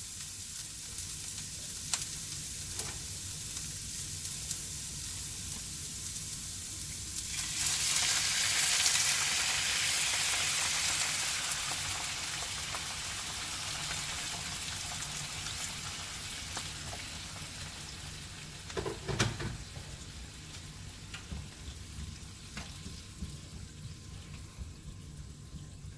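Vegetables sautéing in a little hot oil in a pot with a steady sizzle. About seven seconds in, water poured into the hot oil makes the sizzle jump to a loud hiss, which then slowly dies down. There is a short knock about 19 seconds in.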